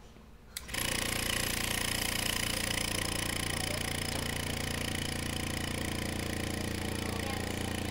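After a couple of clicks, an electric vacuum pump starts abruptly less than a second in and runs steadily with a hum and a hiss, drawing the air out of a bell jar so the water inside boils at reduced pressure.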